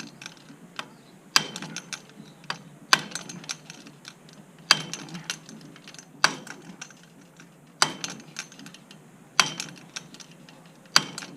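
A hand impact driver set in a seized screw on a roller furler's aluminium drum, struck with a hammer: seven sharp metal-on-metal blows about a second and a half apart, each followed by a short rattle. The thread-locked screw is not turning.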